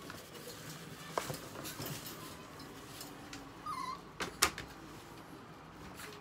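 A Chihuahua in a wire crate gives one short, wavering whine a little past halfway, amid scattered clicks and knocks, the sharpest just after the whine.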